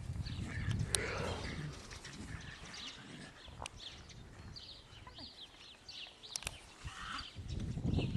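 Small birds chirping in a quick series of short, high calls, over a low rumble of wind on the microphone, with a few sharp clicks.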